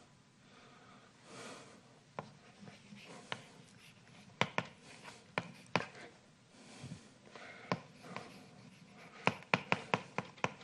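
Chalk writing on a blackboard: a scatter of sharp taps and short scratches as letters are formed, bunching into quick runs near the end.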